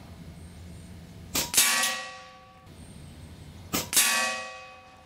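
Two shots from an AGT Uragan 2 .25-calibre PCP air rifle, about two and a half seconds apart. Each sharp report is followed a fraction of a second later by a metallic clang of the pellet hitting the metal target stand, which rings for about a second.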